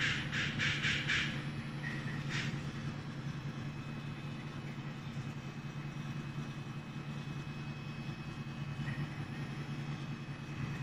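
NeoDen N4 pick-and-place machine running while it mounts components: a steady low hum, with a quick run of short hissing bursts in the first second and another single burst shortly after.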